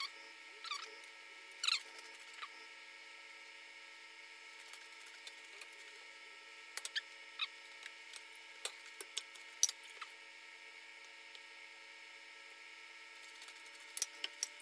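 Sparse small clicks and short squeaks of hands working at a kitchen sink, bunched together in the middle and near the end, over a steady faint hum.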